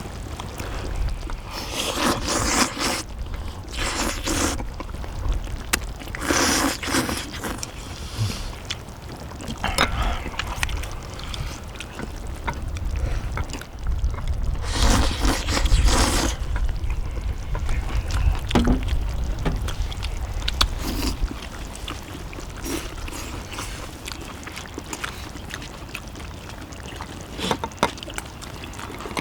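Metal utensils scraping and clicking on a cast-iron pot-lid griddle, with several longer scrapes and many short clicks, over a steady low rumble.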